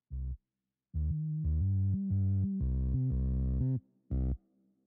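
Background electronic music: synthesizer notes over a low bass, coming in short phrases broken by brief gaps of silence.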